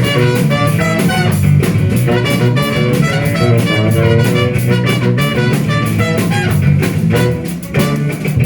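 Live rock band playing the instrumental opening of a song, with guitar and drum kit, loud and driving; the playing briefly drops back near the end before carrying on.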